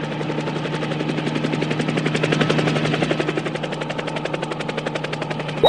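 Cartoon helicopter sound effect: the rotor chopping in a rapid, even pulse.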